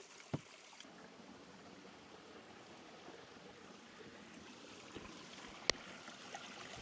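Faint, steady running water of a creek flowing gently over rock, with two sharp clicks, a small one just after the start and a louder one near the end.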